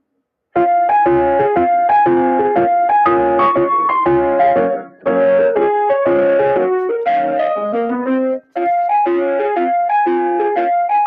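Music: a keyboard melody of quick piano-like notes. It starts about half a second in and breaks off briefly twice.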